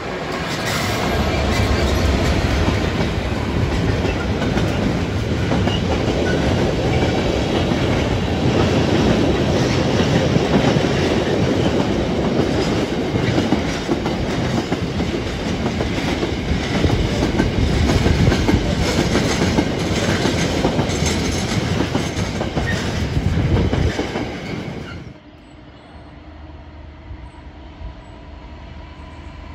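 Class 66 diesel locomotive hauling a long intermodal container freight train past, followed by the loaded and empty container wagons rolling by on the rails. About 25 seconds in the sound drops suddenly to a much quieter distant rumble of a second Class 66 running light engine.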